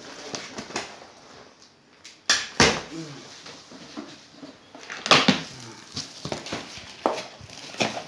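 Cardboard box and packaging being handled and opened: rustling with irregular sharp knocks and clicks, the loudest about two and a half and five seconds in.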